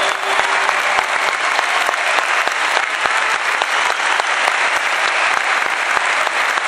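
Concert audience applauding, a dense steady clapping; a held note from the band dies away within the first second.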